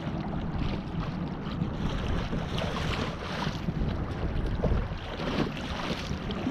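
Wind buffeting the action-camera microphone, with choppy water lapping and splashing against the kayak's hull.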